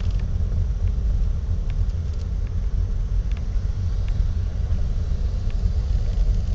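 Steady low rumble of a moving car heard from inside: road and engine noise while driving slowly, with a few faint ticks.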